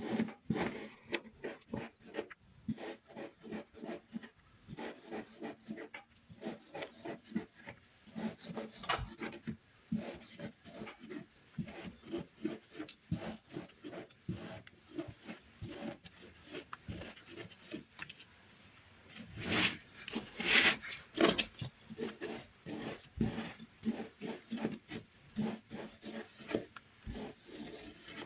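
Kinetic sand being cut in quick repeated strokes, making a gritty rasping. The scraping grows louder for a couple of seconds about two-thirds of the way through.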